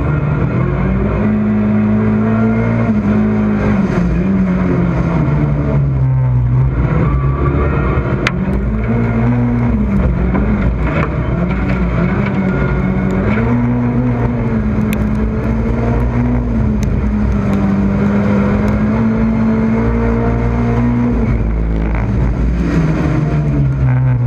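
Rallycross car's engine heard from on board, under hard racing load, its note climbing and dropping again and again as the driver accelerates, lifts and shifts through the corners.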